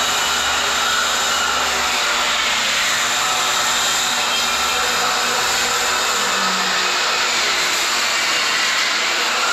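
Power tool motor running steadily, a loud even whirring noise.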